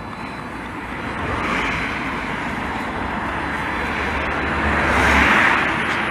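Road traffic: a vehicle passing on the road beside the footpath, its tyre and engine noise swelling and loudest about five seconds in.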